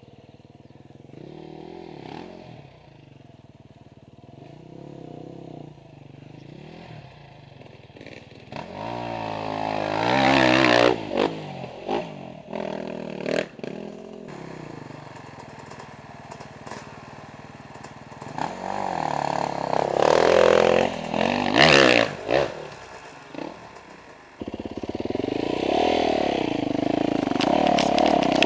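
Off-road motorcycle engines revving in bursts, the pitch climbing and dropping as a dirt bike works up a wet clay hill climb. It is quieter at first, with louder revving about nine seconds in and again around twenty seconds, then a closer engine runs loudly near the end as the rider sets off on the muddy trail.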